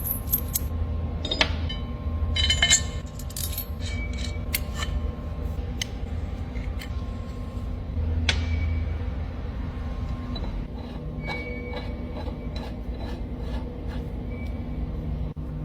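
Steel parts clinking and tapping as threaded bolt pins are fitted into steel spanner plates: scattered sharp metallic knocks, some with a short ringing tone, over a steady low hum.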